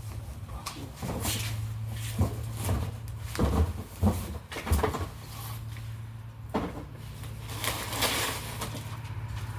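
Irregular knocks, bumps and scraping of boxes and packaging being handled while appliances are unboxed, over a steady low hum.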